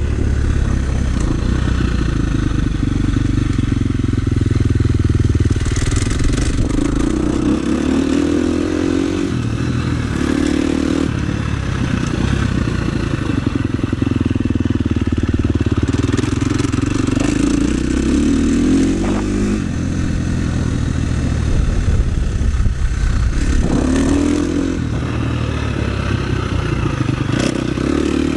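KTM 350 SX-F motocross bike's single-cylinder four-stroke engine under way on a dirt track, revving up and dropping back again and again as the throttle opens and closes.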